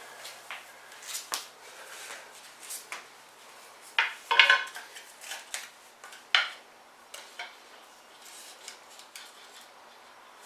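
Wooden bow drill parts (bow, spindle, handhold and fireboard) clacking and knocking as they are handled and set down on a concrete floor. Scattered light clicks, a loud cluster of clacks about four seconds in, and one more sharp knock a couple of seconds later.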